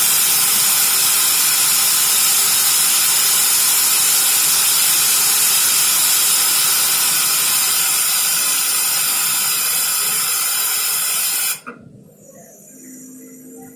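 Train air brakes venting compressed air after a brake application: a loud, steady hiss that eases slightly, then cuts off suddenly near the end. Faint music follows.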